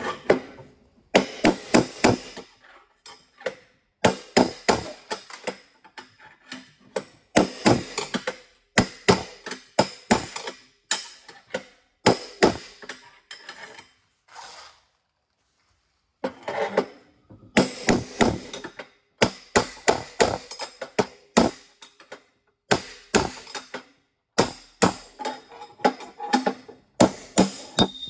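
Hammer striking a bearing punch to drive the old steering head bearing races out of a Honda CRF450 frame's head tube, the punch moved around the race between blows. Quick runs of sharp strikes, several a second, with a pause of about two seconds about halfway through.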